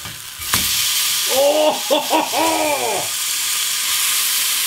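A burger patty sizzling steadily as it fries, its juices spitting in the fat. A single click about half a second in, and a short hummed voice between about one and three seconds.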